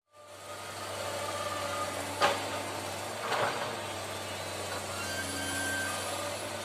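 Excavator's diesel engine running steadily, with two sharp metallic knocks about two and three and a half seconds in.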